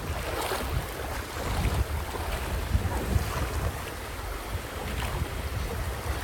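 Stream water rushing over rocks, with wind buffeting the microphone as a low rumble.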